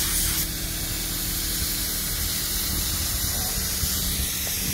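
Compressed-air paint spray gun spraying, a steady hiss, over a steady low hum.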